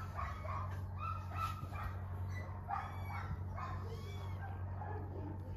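Young kittens mewing, a series of short high calls, over a steady low hum.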